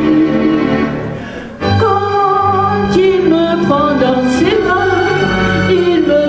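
A woman sings a song into a handheld microphone, her voice amplified over instrumental accompaniment. The music dips briefly about a second in, then comes back in at full strength.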